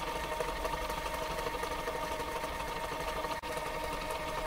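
Film projector running: a steady mechanical rattle with a steady hum, with a brief dropout about three and a half seconds in.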